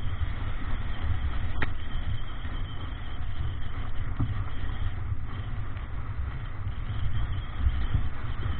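Wind buffeting the microphone in a low, uneven rumble, over water rushing along the hull of a Davidson 36 sailing yacht heeled hard under sail. A single sharp knock comes about a second and a half in.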